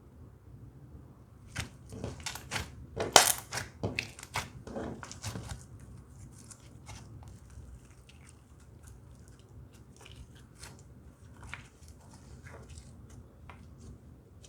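Slime being squished and poked, making a quick run of sharp wet pops and crackles that is loudest about three seconds in, then sparser, fainter clicks.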